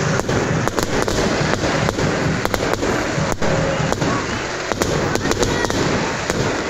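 Fireworks bursting overhead: a rapid, irregular run of sharp cracks, several a second, over the steady noise of a large crowd of football supporters.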